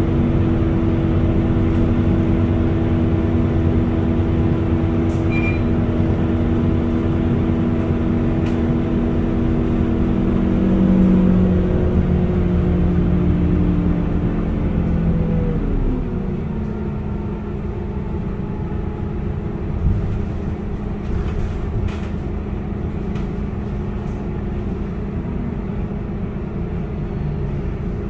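Scania K230UB city bus's rear-mounted diesel engine and driveline running under way, heard inside the passenger cabin. About halfway through the engine note falls and the sound gets quieter, then it runs on at a lower steady note, with a few light rattles.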